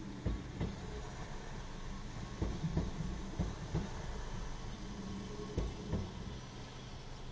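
Diesel multiple-unit train running along the line: a steady engine and running drone, with the wheels knocking over rail joints in quick pairs, several times.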